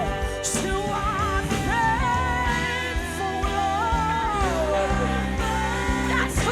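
Worship music: a singer's melody over a full band with sustained chords, bass and cymbals.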